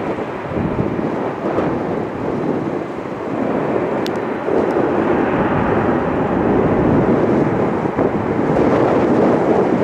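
Boeing 747-400F freighter's four jet engines giving a steady, broad rumble as it touches down and rolls out on the runway. The rumble grows louder about halfway through, with wind buffeting the microphone.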